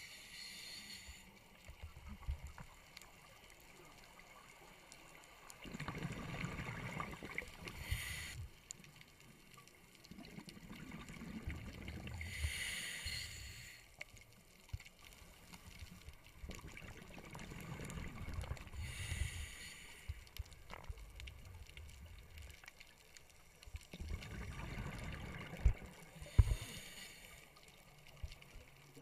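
Scuba diver breathing through a regulator, heard underwater: slow cycles about every six to seven seconds, each a low bubbling rumble of exhaled bubbles followed by a short hiss of inhalation. Two sharp knocks near the end.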